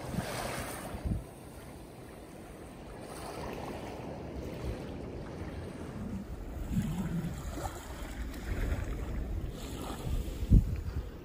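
Small waves washing onto a sandy beach, with wind buffeting the microphone in low rumbling gusts and a sharp thump near the end.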